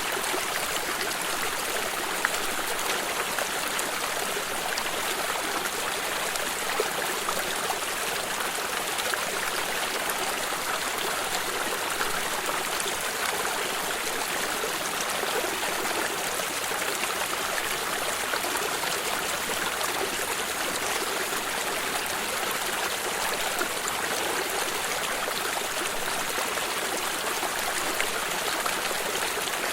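Stream of water running steadily over rocks, an even rushing and trickling with small splashes.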